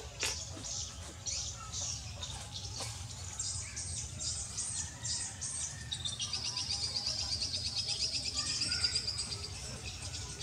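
Small birds chirping in the surrounding trees, with a fast high trill from about six seconds in that lasts some three seconds and is the loudest part.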